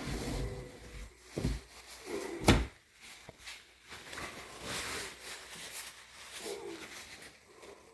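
Irregular knocks and rattling of hard objects being handled, with one sharp, loud knock about two and a half seconds in.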